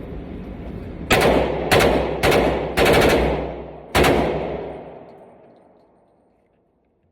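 Glock 32 Gen 4 pistol in .357 SIG with a forced reset trigger firing. Three shots come about half a second apart, then a fast string of several shots about three seconds in, then a last shot about a second later. The echo dies away over about two seconds.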